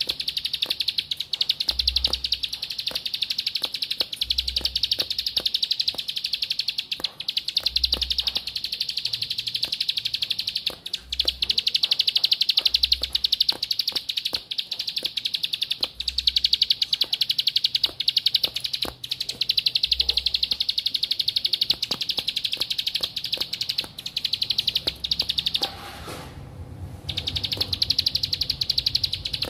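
Ciblek (a prinia) singing a fast, high, buzzing trill that runs almost without pause and breaks off for about a second near the end. Soft low thumps come about every two seconds in the first two-thirds.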